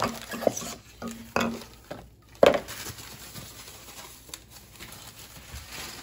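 Unpacking a sink-mounted soap dispenser: a cardboard box and the dispenser's bottle handled, giving a few knocks and clatters, the loudest about two and a half seconds in, then fainter rustling.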